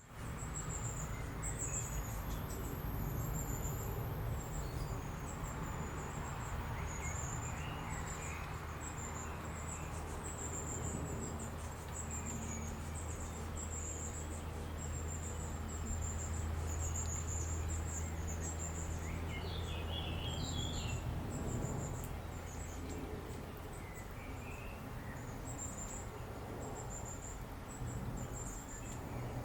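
Outdoor nature ambience: a continuous high-pitched chirring, like insects, over a steady low rumble. A few short bird calls come about two-thirds of the way through and again near the end.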